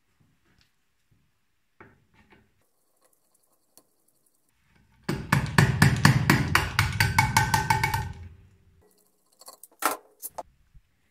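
Fast run of hammer taps on the valve spring tops of a Mercedes-Benz OM 615 diesel cylinder head, about six a second for some three seconds, the later strikes ringing metallically. A few light clicks follow near the end.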